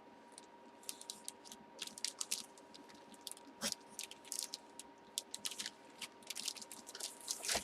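Faint crinkling and crackling of plastic packaging being handled, a scatter of quick small clicks with a louder crackle about three and a half seconds in.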